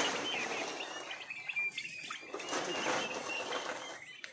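Young turkey poults peeping: a running string of short, high chirps.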